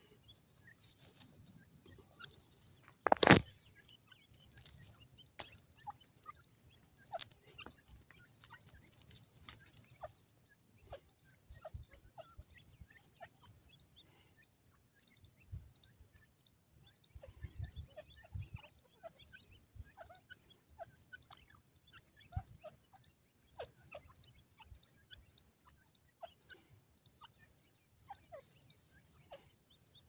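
Grey francolin foraging on dry sandy ground: scattered soft clicks and crunches of pecking and scratching, with faint short chirping notes, and one sharp knock about three seconds in.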